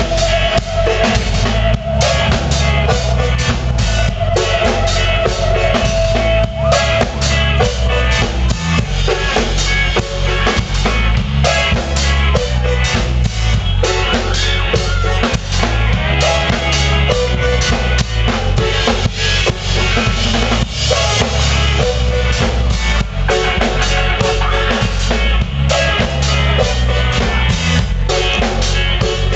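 Live rock band playing loud: a drum kit with bass drum and snare driving a steady beat under keyboard and electric guitar, with one note held for the first seven seconds or so.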